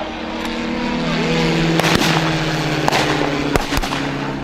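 Gunshots, three sharp cracks (one in the middle, two in quick succession near the end), over the steady hum of a running engine that shifts pitch slightly.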